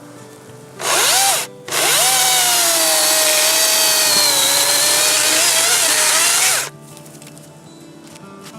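DeWalt Flexvolt 60V Max brushless battery chainsaw (DCCS670) triggered: a short burst about a second in, then a run of about five seconds with a high whine that cuts off suddenly when the trigger is released.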